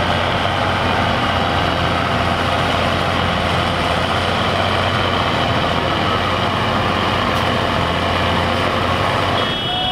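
Fendt Vario tractor's diesel engine running steadily under heavy load as it pulls along the track, a constant low drone. Just before the end a brief high tone sounds and the engine sound drops away.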